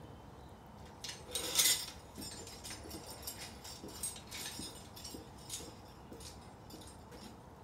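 Steel crucible lifting tongs and their hanging chain clinking and jangling as they are picked up and carried, a run of light metallic clinks, loudest about a second and a half in.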